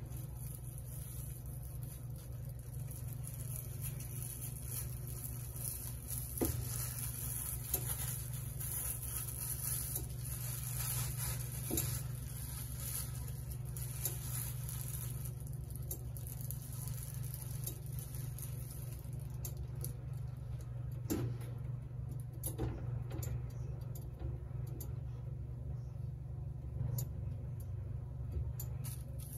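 A plastic bag crinkling and rustling as it is handled, in scattered crackles, over a steady low hum. A high hiss drops away about two-thirds of the way through.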